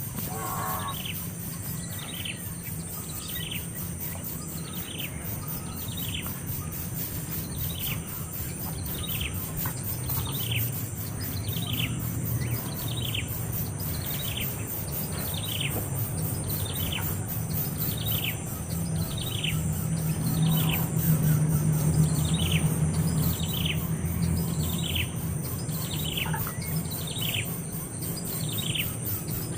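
A bird calling over and over, one short downward-sliding note about once a second.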